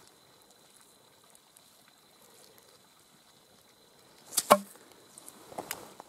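Two or three sharp knocks of rock striking rock and frozen ground, about four and a half seconds in, after near quiet; a few faint clicks of stones being handled near the end.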